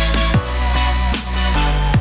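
Electronic dance background music with heavy sustained bass, falling bass drops and a steady beat.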